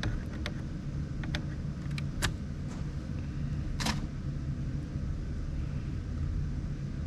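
Light plastic clicks and taps of fuses and a fuse tap being handled at a Jeep fuse box, about eight in the first four seconds with the sharpest just before four seconds, over a steady low hum.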